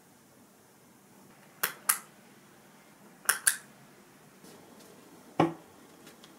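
Two quick pairs of sharp clicks, then a single wooden knock as a round wooden side table is set down on the floor beside the bed.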